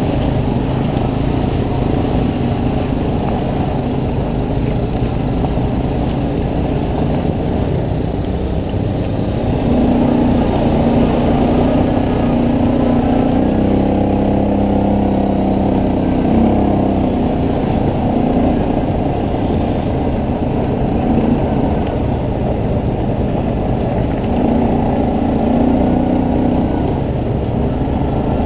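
ATV engine running under way, its pitch rising and falling with the throttle, most clearly from about a third of the way in to past halfway and again near the end.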